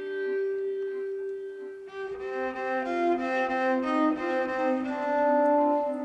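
Bowed cello playing slow sustained notes: one long held note, then from about two seconds in several notes overlapping.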